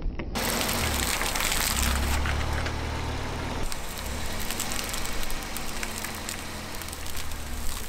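A car's tyre slowly rolling onto stacked polystyrene foam slabs and crushing them, giving a dense, continuous crackling, over the low, steady hum of the car's engine.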